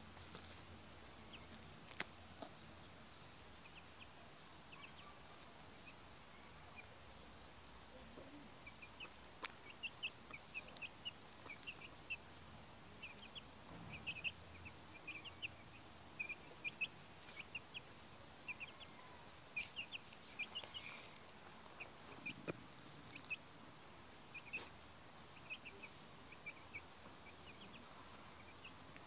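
Young chicks peeping: short, high cheeps, scattered at first and then coming thick and fast from about eight seconds on. There is a single sharp click about two seconds in.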